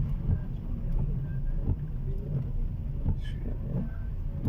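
Car engine and road noise heard from inside the cabin: a steady low rumble as the car moves slowly through traffic.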